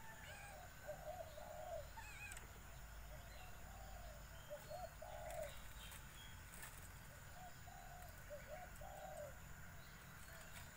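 Doves cooing softly in repeated groups of short low coos, with a few higher bird chirps about two seconds in.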